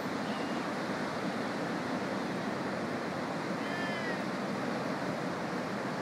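Pacific surf breaking on a sandy beach, a steady rushing wash. A brief high-pitched arching call sounds about four seconds in, with a fainter one just after the start.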